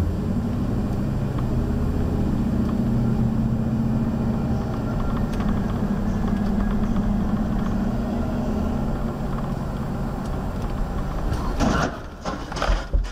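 Steady low drone of a car driving, heard from inside the cabin through a dashcam. Near the end, a few sharp, loud bangs of a car crash.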